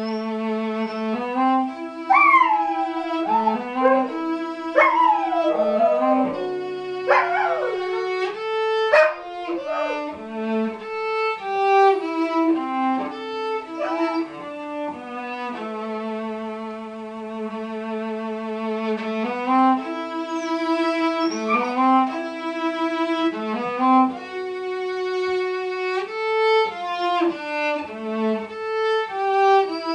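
Solo cello playing slow held notes while a sprocker spaniel howls along in rising and falling wails, several in the first ten seconds and a few more near the middle.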